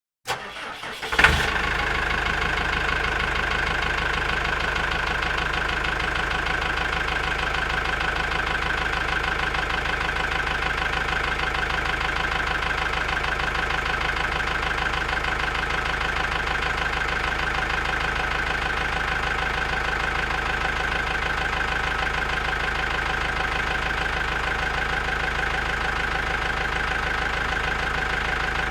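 Tractor engine cranked briefly on the starter, catching about a second in with a sharp burst, then idling steadily.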